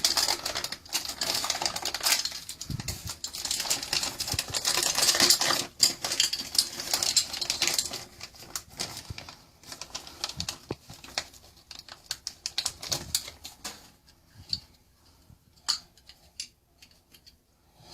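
Rapid clicking and rattling as the parts of a new shower valve handle are handled and fitted. The clicks are dense for the first half, then thin to scattered single clicks.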